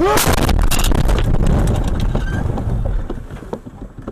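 Dashcam car crash heard from inside the car: a loud collision right at the start, then about three seconds of clattering and rumbling that dies away.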